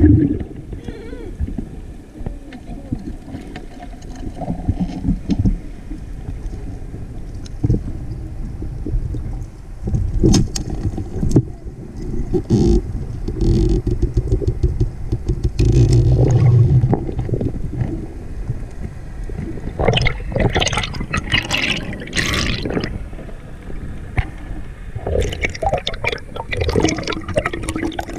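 Underwater water noise heard through a camera's waterproof housing: a muffled low rumble with louder bursts of swirling water, the biggest about two-thirds of the way through.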